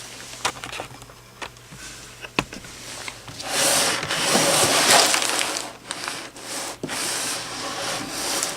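Handling noise from computer parts: a few light knocks, then several seconds of rustling and rubbing, loudest about halfway through.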